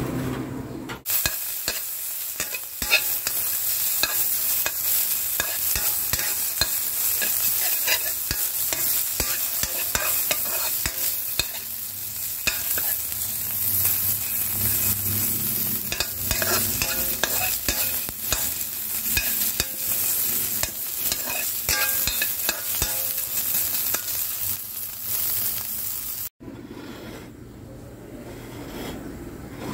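Shredded meat frying and sizzling in a metal pan while a spatula stirs and scrapes it, with a steady hiss full of small clicks and scrapes. The sound cuts off abruptly near the end, leaving a much quieter background.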